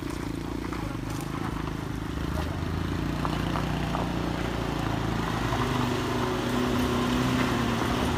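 A minibus engine working up a steep dirt-and-gravel hill, getting louder as it comes closer, with its pitch rising near the end.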